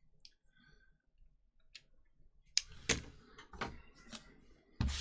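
A few light clicks and taps, starting after about two and a half seconds of near silence.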